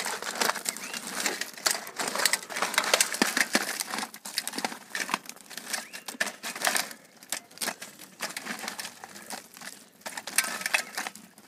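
Raw crabs being mixed by hand with a dry spice masala in a steel plate: shells clicking and clattering against each other and the metal, with a rustling of the coating. The clatter is irregular and thins out for a few seconds in the second half.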